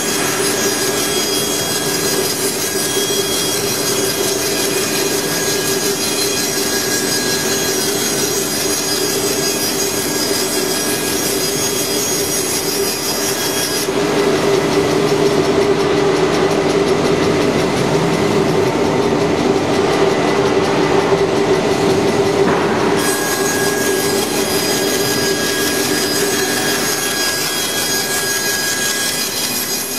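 CNC chair-leg profiling machine cutting a wooden blank held by vacuum and clamps: a steady machine whine under the noise of the cutter working through wood. It grows a little louder and duller for several seconds around the middle.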